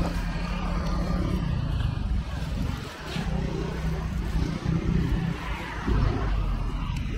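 Street traffic: motor vehicle engines running close by, a steady low drone that drops briefly about three seconds in.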